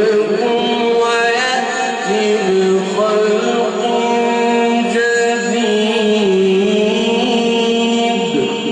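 Male Quran reciter (qari) chanting in the melodic mujawwad style: one long ornamented phrase of held notes that shift in small steps, breaking off near the end.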